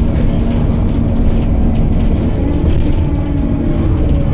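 Cummins diesel engine of an Optare Solo bus running steadily with the bus under way, heard from inside the passenger cabin as a constant engine hum over low road rumble. The engine note shifts slightly about halfway through.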